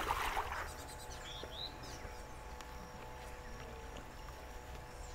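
A brief loud rushing noise right at the start, then a steady, fairly quiet outdoor background with a low hum, and a couple of short bird chirps about one and a half seconds in.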